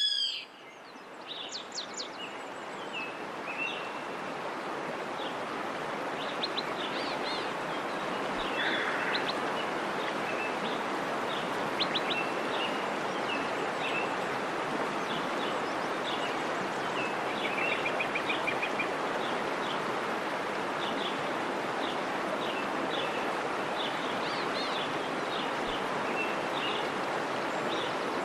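Steady rush of a waterfall, swelling in over the first few seconds, with small birds chirping over it: many short high chirps and an occasional quick trill throughout.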